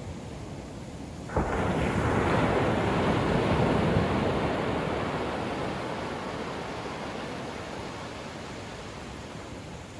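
Ocean wave breaking at the shoreline, coming in suddenly about a second and a half in, then its wash rushing up the sand and slowly fading.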